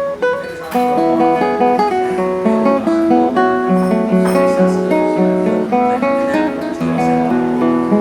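A 2023 Stephen Connor lattice-braced classical guitar being played: plucked single notes, a melody moving over a lower bass line.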